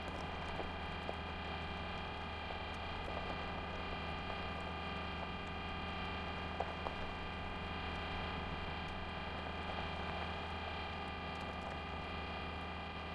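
A steady droning hum made of several held tones over a light hiss, starting abruptly, with a few faint ticks in the first seconds and once more near the middle.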